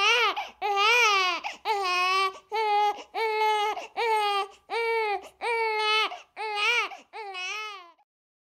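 A newborn baby crying: about nine short, high wails one after another, each rising and falling in pitch. The last cries are weaker, and the crying stops about eight seconds in.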